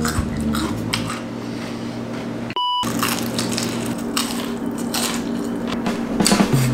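Close-up eating sounds: a person chewing and smacking on fried chicken and rice, with many small wet clicks. A short electronic beep cuts in a little over two and a half seconds in.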